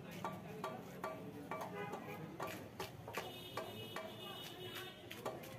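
Scales being scraped off a large rohu fish with a hand-held blade, in quick repeated rasping strokes, about three a second.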